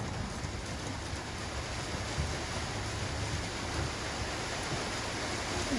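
Heavy rain pouring down onto a van's roof, heard from inside the van as a steady hiss.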